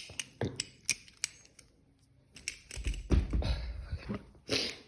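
Balisong (butterfly knife) being handled: its metal handles and blade clicking and clacking, several sharp clicks in the first second and a half. A dull low rumble of handling follows near the middle, with more scattered clicks.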